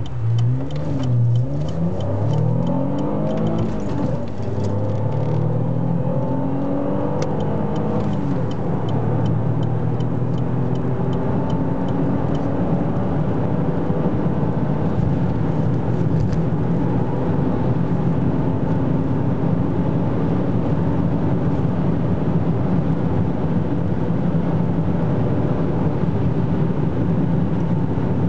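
Opel Insignia OPC's turbocharged 2.8 V6 accelerating hard from a standstill to about 186 km/h, heard from inside the cabin. The engine note climbs and drops back with each upshift over the first eight seconds or so, then settles into a steadier, slowly rising drone in the higher gears.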